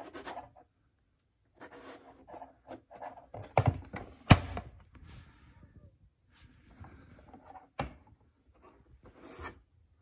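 Hands and a small tool rubbing and scraping inside a robot vacuum's self-emptying dock, with a few sharp clicks and knocks, the loudest a little after four seconds in.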